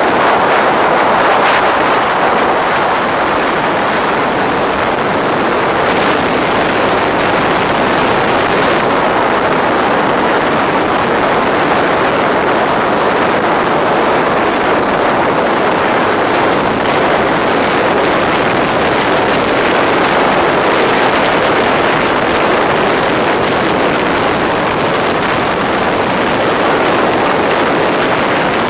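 Black Sea surf: a steady, loud roar of waves breaking on the shore.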